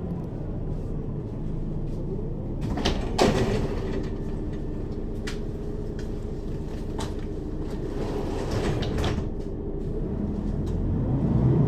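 Mercedes-Benz Citaro O 530 city bus idling at a stop, heard from inside over the second axle, with the doors clattering and hissing about three seconds in and again later. Near the end the engine starts to rise as the bus pulls away.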